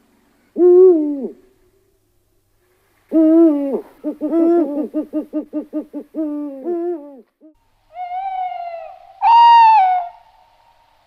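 Eurasian eagle-owl calling: a deep hoot about half a second in, then a run of deep hoots and quick stuttering notes. Near the end come higher-pitched calls, the last of them the loudest.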